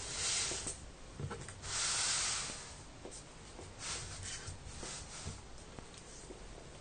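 A cardboard board scraping and sliding across a cutting mat as the vacuum engine model on it is turned by hand: two loud swishes in the first three seconds, with a few light knocks and softer rustles after.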